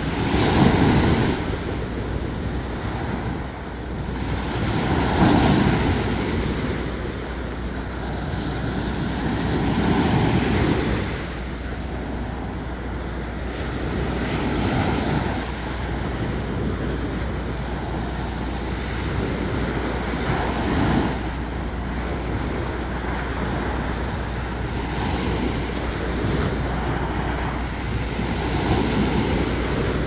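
Small waves breaking and washing up a sandy beach, surging every four to six seconds, with wind rumbling on the microphone.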